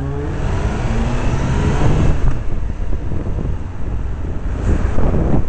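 Motorcycle engine pulling away, its revs rising through the first couple of seconds and again after a gear change, then a steady ride with low engine rumble and wind noise over the microphone.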